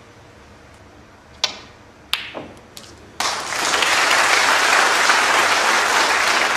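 Three sharp clicks over about a second and a half, then a snooker crowd applauding steadily from about halfway through.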